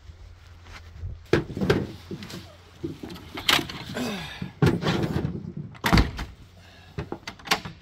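Rubber boots thudding on a pickup's lowered tailgate and bed liner while a load of carrots is kicked and pushed out of the bed: a string of separate knocks and thumps, the loudest about six seconds in.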